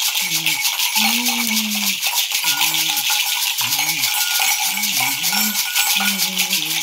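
Gourd rattles, one netted with beads, hung with clusters of small metal bells, shaken fast and steadily, a continuous rhythmic rattling jingle. A man's low voice chants short phrases over it.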